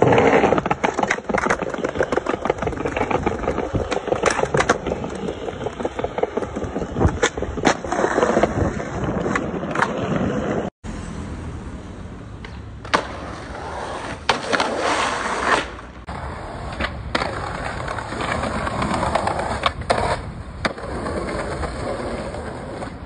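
Skateboard wheels rolling over rough concrete and paving, with sharp clacks of the board striking the ground now and then.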